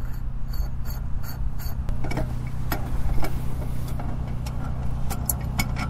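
Compact excavator's diesel engine idling steadily in the background, with a run of small sharp clicks and taps from hand work at the brass fitting of a buried propane tank: four evenly spaced clicks in the first two seconds, then irregular ones.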